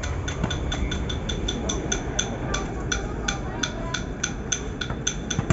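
A distant low rumble from the Airbus A330 MRTT's jet engines as it rolls out on the runway after landing. Over it runs a steady chirping of sharp repeated chirps, about three a second.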